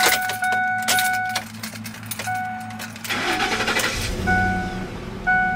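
Ford F-150 warning chime dinging repeatedly, then about three seconds in the truck's 5.4-litre V8 cranks and catches, settling into a steady idle heard from inside the cab while the chime keeps dinging about once a second.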